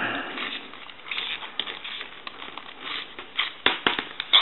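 Small metal clicks and scraping as a tool works at the little retaining key on a payphone handset's security cable, with a few sharper clicks in the last second.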